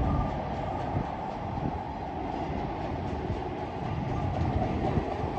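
Union Pacific manifest freight train's cars rolling past, a steady noise of wheels on rail with faint scattered clicks.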